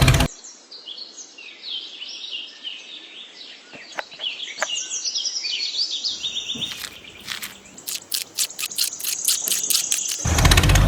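Small birds chirping in quick, short high calls, followed by a rapid run of sharp clicks near the end.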